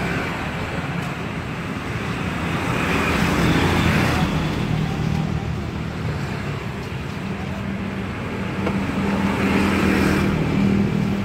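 Road traffic passing a roadside food stall: a steady mix of engine hum and tyre noise that swells twice, about three seconds in and again near the end, as vehicles go by.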